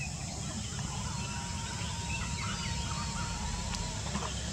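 Short scattered bird calls over a steady low rumble, with a thin steady tone held for about three seconds in the middle.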